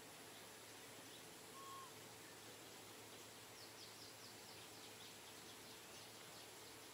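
Near silence: faint outdoor background hiss, with a run of faint, rapid high chirps from about halfway through.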